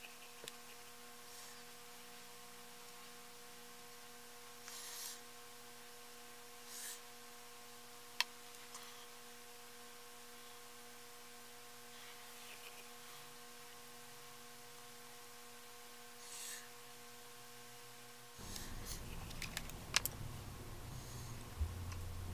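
Faint steady electrical mains hum, with a few soft rustles and one sharp click about eight seconds in. In the last few seconds the background noise rises, with light clicks and scratches as a makeup brush is worked on the eyelid.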